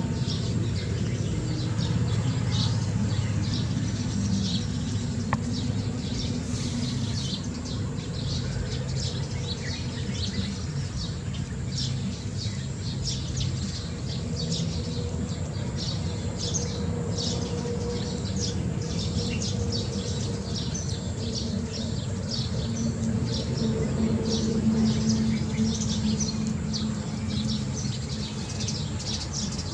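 Birds chirping, many short high calls throughout, over a steady low hum.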